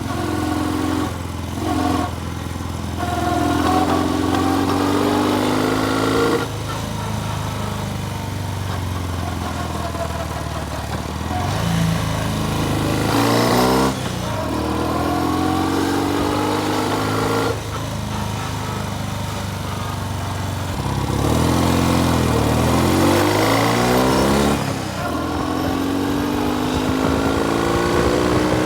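Norton motorcycle engine pulling under load on a road test, its revs rising in several sweeps, each ending in a sudden drop as the rider changes gear.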